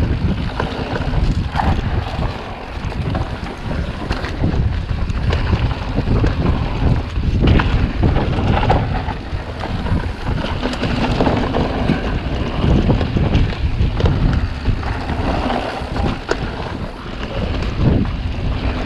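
Wind rushing over the microphone as a mountain bike runs fast down a dry dirt trail, its tyres rumbling on the ground, with frequent short knocks and rattles from the bike over bumps.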